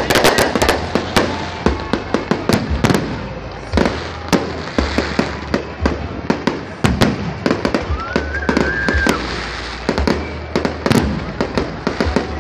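Aerial fireworks going off in rapid, irregular succession, a dense string of sharp bangs and crackles, with a short rising whistle about eight seconds in.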